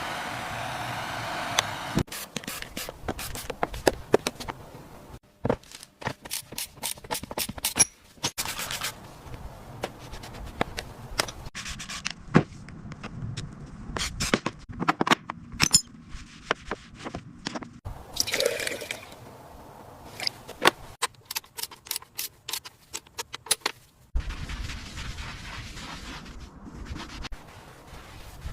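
Workshop repair noises: a long series of sharp clicks and knocks from tools and metal parts, with scraping and a few short stretches of hiss.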